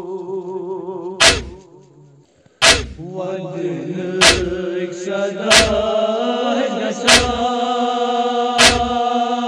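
Male voices chanting a noha lament in unison, with a sharp chest-beat (matam) about every second and a half. The chant and beats fade almost to silence about two seconds in, then resume.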